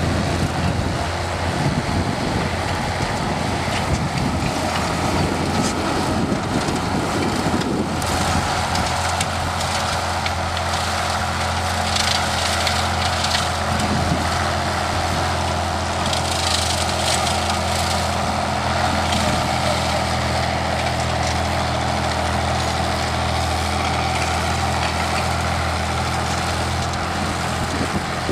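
Old Case tractor's engine running steadily while mowing brush. About eight seconds in the note settles and a steady higher whine joins it, and short bursts of crackling noise come about halfway through.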